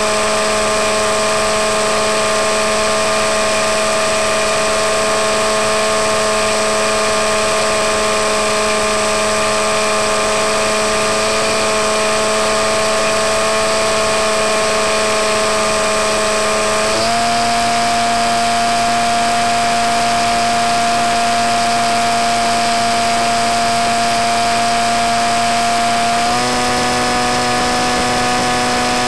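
Electric motor and propeller of a Skywalker 168 model plane whining steadily in flight. The pitch steps up about seventeen seconds in and again near the end as the throttle is raised, with the motor current climbing from about 5 to 7 amps.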